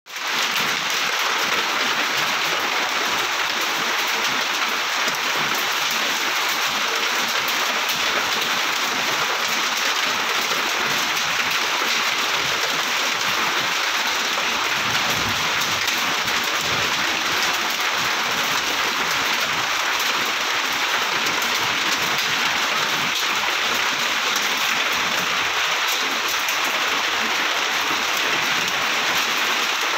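Steady rain falling on trees and foliage: an even hiss of countless drops with no letup.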